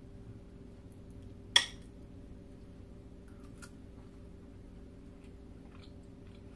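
A metal spoon strikes a plate once with a sharp, ringing clink about a second and a half in, followed by a few faint taps. A faint steady hum runs underneath.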